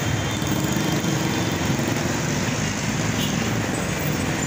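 Steady traffic noise from a congested city street: the engines of jeepneys, cars, motorcycles and tricycles running and idling in slow, stop-and-go traffic.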